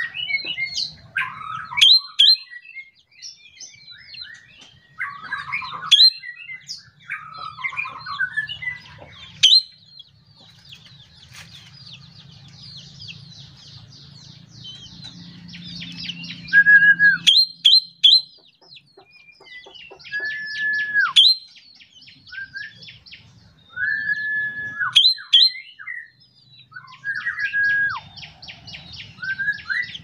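A drongo (srigunting kantil) singing a varied song: fast chattering trills, sharp high notes, and several held whistles that drop in pitch at the end, with short pauses between phrases.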